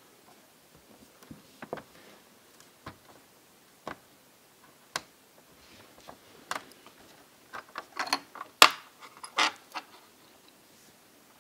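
Small clicks and taps of fingers and a screwdriver on a laptop's plastic interior as ribbon-cable connectors are unlatched. They come sparsely at first, then louder and closer together about eight seconds in.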